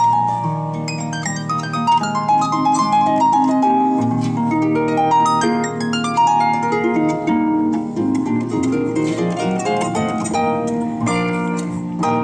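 Solo harp playing a light waltz: a quick plucked melody over low, ringing bass notes.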